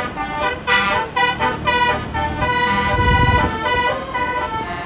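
Bus 'telolet' musical air horn, a set of many trumpets playing a quick tune of short notes with a longer held note in the middle. A low rumble rises about three seconds in.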